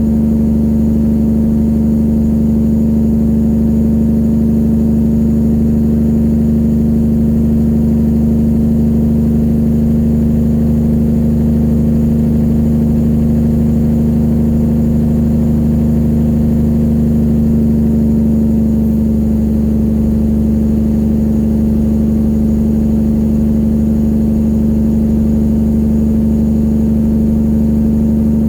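Straight-piped diesel engine of a Peterbilt 379 semi truck running at a steady speed, a loud even drone. A lower tone in it drops away about two-thirds of the way through.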